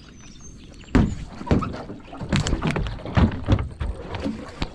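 Knocks and thumps of gear being handled in and against a small boat: about nine irregular hits, starting about a second in.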